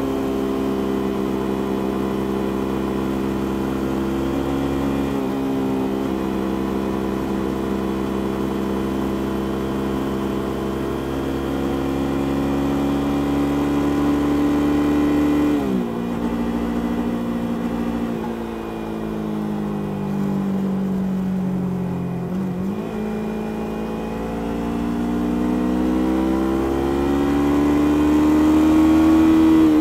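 Yamaha YZF-R3's stock 321 cc parallel-twin engine and exhaust under way. Revs hold steady for about the first half, drop suddenly about halfway and sink slowly for several seconds, then climb steadily and grow louder near the end as the bike speeds up.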